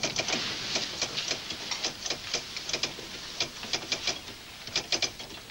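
Rapid, irregular clicking and tapping, several clicks a second, over a steady hiss.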